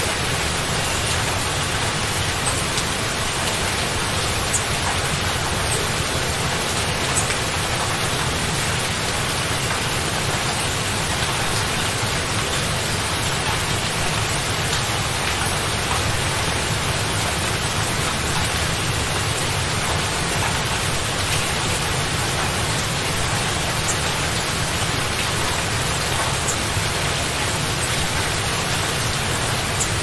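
Steady rain, an even hiss with no breaks, thunder or separate impacts standing out.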